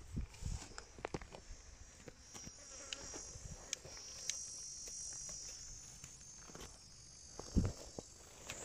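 An insect trills steadily in a high, continuous buzz, loudest around the middle. Scattered soft thumps and clicks sound over it.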